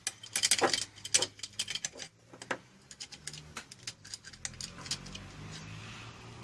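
Metal tools and small engine parts clicking and clinking in irregular taps as the motorcycle engine's top end is worked on and a part is taken off. The clicks come thickly in the first few seconds, then thin out.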